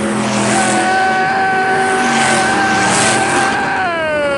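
A long high-pitched tone, held steady for about three seconds and then sliding down and cutting off near the end, over race car engines running at a dirt track.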